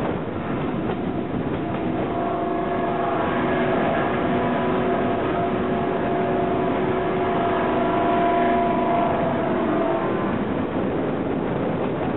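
Moving diesel-hauled train heard from a carriage window: running noise throughout, with a steady droning note from the locomotive that comes in about two seconds in and fades near ten seconds.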